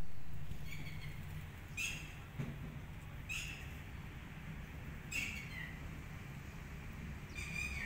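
A bird calling: five short, high chirps spaced a second or two apart, some dipping slightly in pitch at the end, over a steady low hum.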